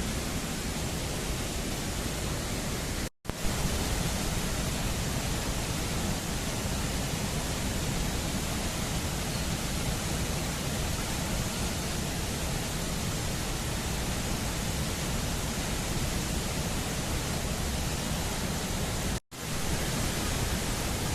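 Steady, even rushing noise, dropping out to silence for an instant twice: about three seconds in and near the end.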